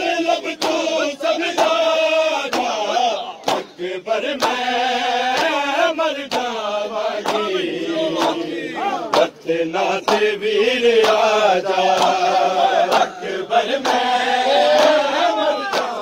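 A crowd of men chanting a mourning noha in unison, with sharp chest-beating slaps of matam landing about once a second.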